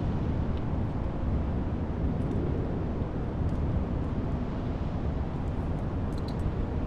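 Steady low outdoor rumble, the kind of sound left by wind on the microphone or distant traffic, with a few faint clicks about six seconds in.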